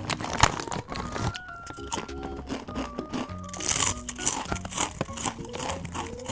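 Potato chips crunching as they are bitten and chewed, repeatedly, over light background music.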